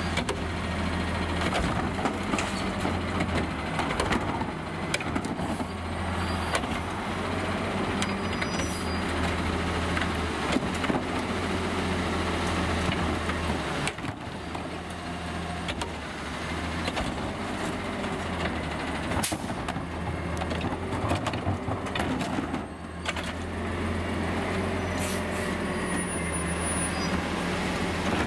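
Garbage truck with a Heil Curotto Can body running steadily, with scattered clanks and clicks and a couple of brief high squeals.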